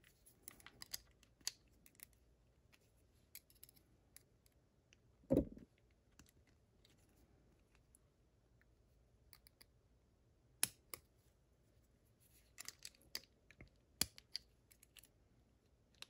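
Faint scattered clicks and ticks of small lock parts being handled as a Łucznik lock cylinder is reassembled. There is one short dull thump about five seconds in, and a quick run of clicks near the end.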